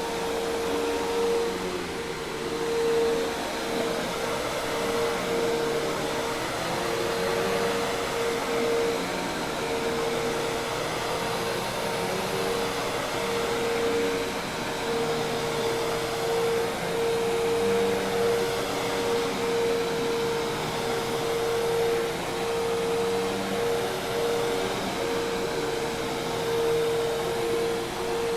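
Hoover Task Vac commercial vacuum cleaner running steadily: a constant motor whine over the rush of air.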